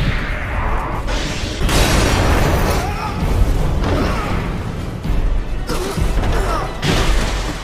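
Anime duel attack sound effects: several sudden booming blasts and crashes over dramatic background music.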